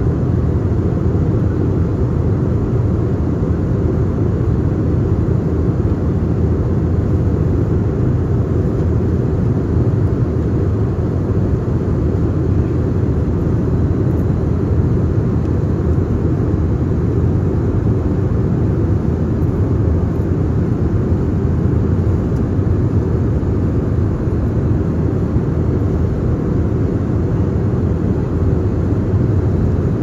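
Cabin noise of a jet airliner in flight: a steady low rumble heard from inside the passenger cabin.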